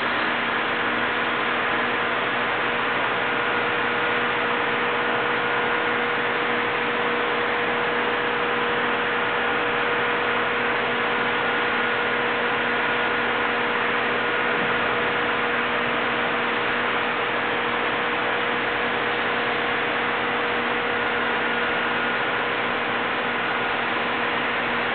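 A machine running steadily: an even rushing noise with a constant hum, unchanged throughout.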